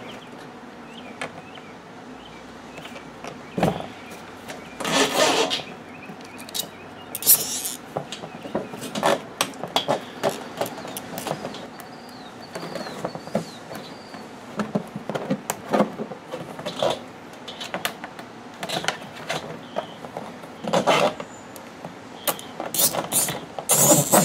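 A plastic wheelbarrow tub handled while a zip tie is threaded through a bolt hole: scattered knocks, taps and scrapes on the plastic, with a few louder bursts about a second long.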